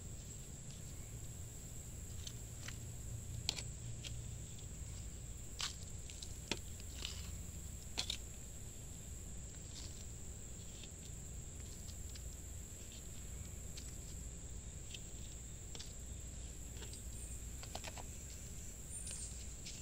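Spoon scraping and tapping as potting mix is scooped from a metal bucket into small plastic nursery pots, making scattered sharp clicks. A steady high insect trill runs underneath throughout.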